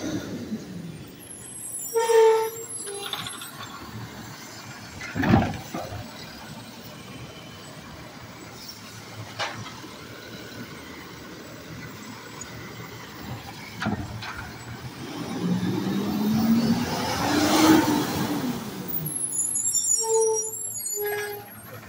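Automated side-loader garbage truck working a pickup: the air brakes hiss with a short squeal about two seconds in and again near the end, there is a loud bang around five seconds in, and the diesel engine revs up and back down for a few seconds as the hydraulic arm works.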